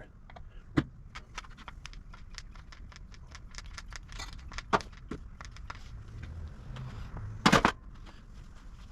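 Metal hub parts and tools clinking and clicking as the front hub is worked on, with a sharper knock about a second in, another near the middle, and the loudest few knocks close together near the end.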